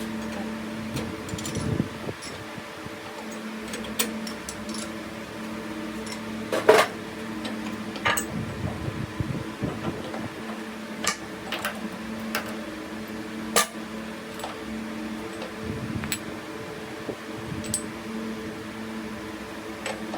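Metal lathe running with a steady hum, with scattered sharp metallic clicks and clinks; the two loudest knocks come about a third and two thirds of the way through.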